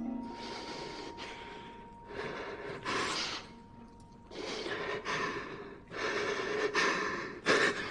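A man breathing heavily in and out, a breath every second or two, the breaths getting louder toward the end. A faint steady tone runs under the first half.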